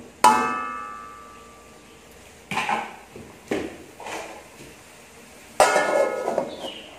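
Metal spatula clanging against a metal wok and ringing for over a second, then a few short scrapes of stirring, and near the end a metal lid clanging down onto the wok and ringing.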